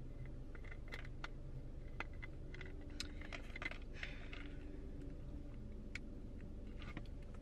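Faint, irregular small clicks and light handling noise over a steady low hum in a parked car's cabin.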